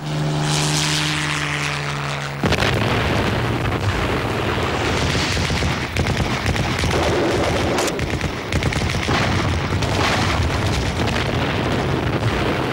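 Battle sound effects over war footage: a propeller aircraft's steady engine drone for about the first two seconds, then a sudden switch to a continuous din of explosions and gunfire with repeated sharp blasts.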